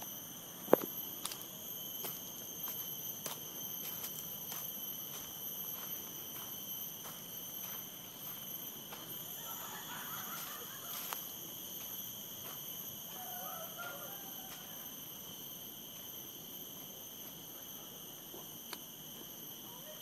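Insects droning steadily in several high, unchanging tones. Regular footsteps sound through about the first eight seconds, with a sharp click just under a second in and a few faint chirps near the middle.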